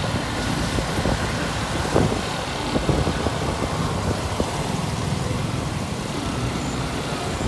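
Motorcycle running at riding speed, with a steady low engine rumble and road noise.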